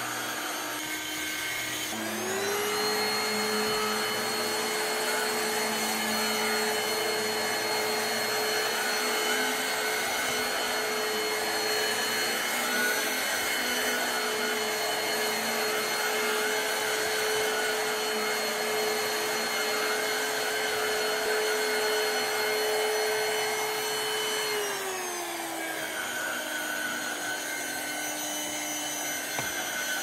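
Black+Decker Powerseries+ 16V MAX cordless stick vacuum running over carpet. Its motor whine rises in pitch about two seconds in, holds steady at the higher speed, then drops back down a few seconds before the end.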